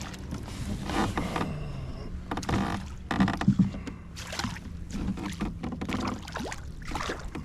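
Water splashing and sloshing around a Hobie PA12 kayak in a string of short swishes, over a steady low hum.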